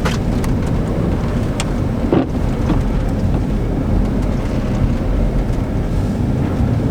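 Dodge Durango being driven and drifted through snow: a continuous low rumble of engine and tyres, with wind buffeting the microphone and a few light knocks.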